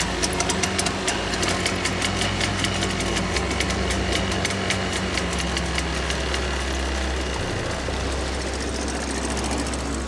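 Tense background music: rapid, even ticking percussion over sustained low bass notes that change pitch twice.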